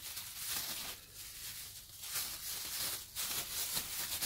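Thin plastic bags crinkling and rustling as they are handled, in irregular soft crackles.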